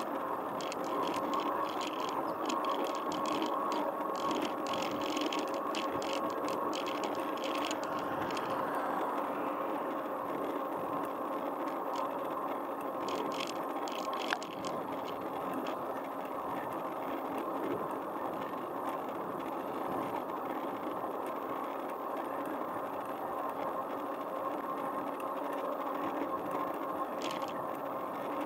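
Bicycle ridden along a paved road: steady rolling tyre and wind noise with a faint steady hum. Bursts of light rattling come in the first few seconds, again about halfway through and near the end.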